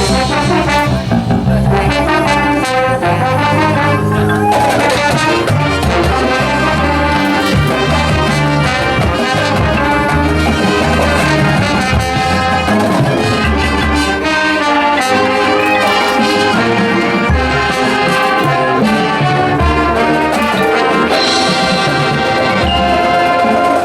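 Marching band brass section playing loudly, trumpets and trombones sounding many sustained notes together.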